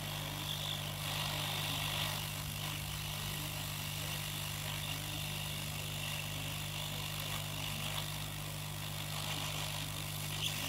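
Steady machine noise: a constant low electrical hum under an even fan-like hiss, with a small tick near the end.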